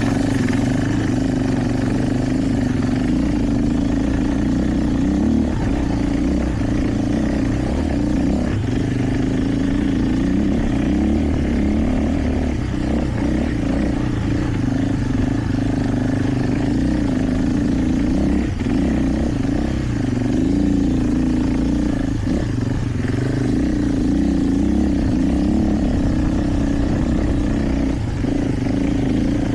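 KTM 450 EXC single-cylinder four-stroke enduro motorcycle engine running under way, its pitch wavering a little up and down with the throttle.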